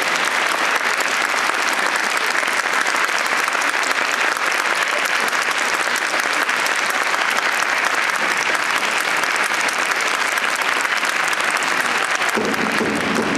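Large stadium crowd applauding steadily, a dense, even clapping.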